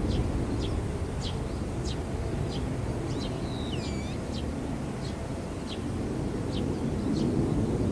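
Low jet-engine rumble from a Boeing 737-800 on the runway. It eases off around the middle and builds again toward the end. A small bird chirps over it many times in short high notes, some of them swooping.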